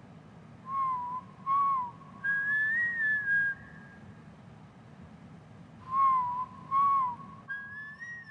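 A person whistling a slow tune: two short notes followed by a longer, higher wavering note. The phrase plays about a second in, returns about six seconds in, and a further high note starts near the end. It is heard through a hall's sound system, over a steady low hum.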